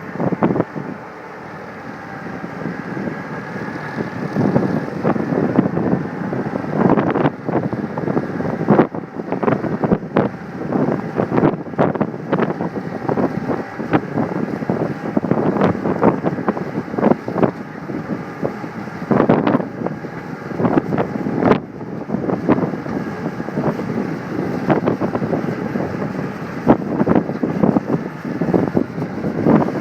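Cat skid steer running with a brush mower attachment: a steady machine noise with many short, irregular knocks over it. Wind buffets the microphone.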